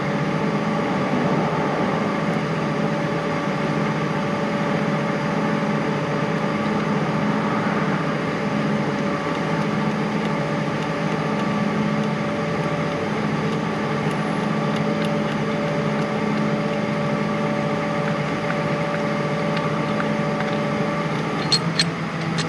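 Steady mechanical hum, even in level throughout, with a few light metallic clinks near the end.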